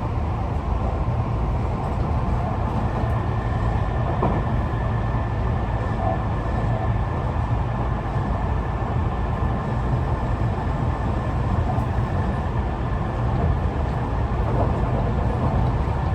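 Inside a Tobu 50090-series electric train car running at speed: a steady low rumble of wheels on rails and underfloor equipment, with a faint steady high whine. The recordist suspects this car has a different, unusual type of traction motor.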